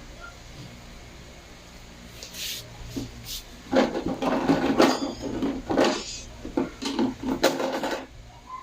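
Plastic toys being handled and knocked together: a few light clicks, then about four seconds of busy clattering and rummaging starting a little under halfway through.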